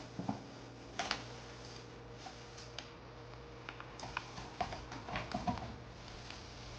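Scattered light clicks and knocks of kitchen items being handled while coffee is made, with a quick cluster of them near the end, over a faint steady hum.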